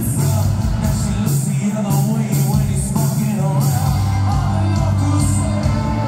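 Live rock band playing at full volume: electric and acoustic guitars, bass, keyboards and drums, with a steady beat of drum and cymbal hits, heard from the audience in a large hall.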